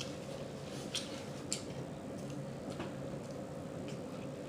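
Mouth chewing close to the microphone, with a few short wet lip-smacking clicks spaced a second or so apart, over a steady faint hum.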